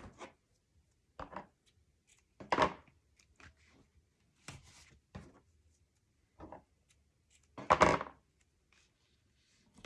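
Cardstock pieces being handled and set down on a work table: a string of light taps and rustles, with two louder knocks about two and a half seconds and about eight seconds in.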